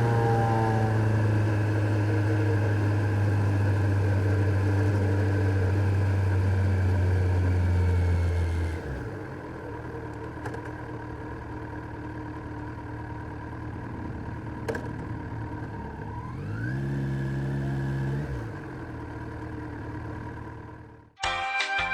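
Kawasaki Z900's inline-four engine running steadily under load, then dropping off suddenly to a quieter, lower note about nine seconds in. Near the end it revs up briefly and falls back, and music cuts in at the very end.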